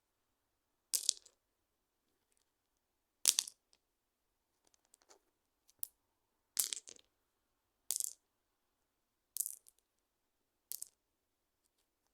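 Stones clacking together in a series of sharp clicks, each followed by a short rattle. There are about eight, one every second or so.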